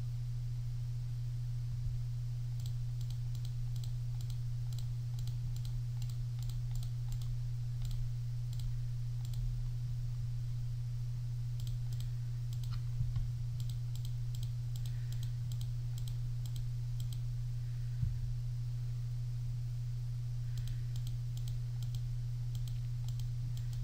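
Computer mouse button clicking in runs of several clicks a second, the sound of checkboxes being unticked one after another, over a steady low hum.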